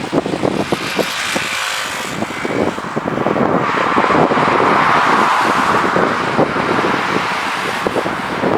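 Jet airliner passing on the runway, its engine noise swelling to a peak about halfway through and then easing off, with wind buffeting the microphone throughout.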